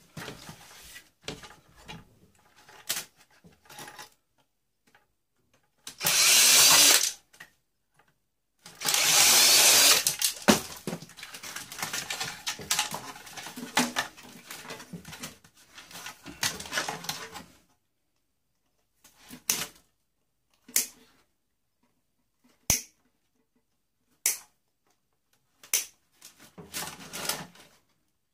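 A power drill runs twice, about a second and then nearly two seconds, between scattered clicks and rattles of small parts being handled.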